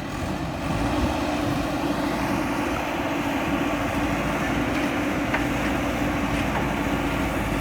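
Diesel engine of a JCB 3DX backhoe loader running steadily, getting louder about a second in and then holding that level.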